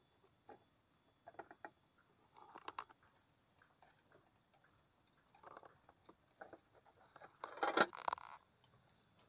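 Light clicks, taps and scrabbling on a clear plastic compartment box holding live crickets, coming in scattered short bursts, with a louder rustle of handling near the end.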